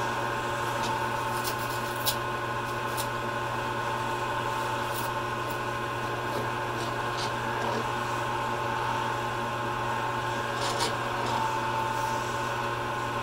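Lathe running steadily while a turning tool cuts a black acrylic pen blank: a steady motor hum under a continuous scraping rasp from the cutting, with a few sharp ticks scattered through it.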